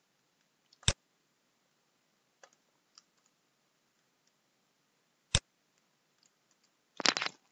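Computer mouse and keyboard clicking during text editing. There is a sharp single click about a second in and another about five seconds in, a few faint ticks between them, and a quick run of clicks near the end.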